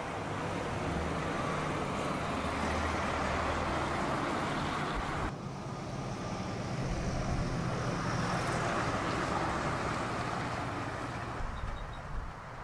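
Motor vehicle engine running steadily, a low hum under outdoor traffic-like noise, with an abrupt change in the sound about five seconds in.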